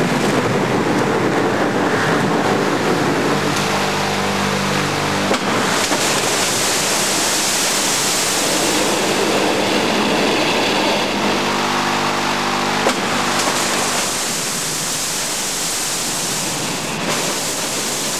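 Water crashing down onto a full-size U-boat conning tower mock-up from overhead tanks, with studio wind machines blowing spray: a loud, steady rushing and pelting of water. A low machine hum comes in twice, about four and twelve seconds in, and each time ends with a knock.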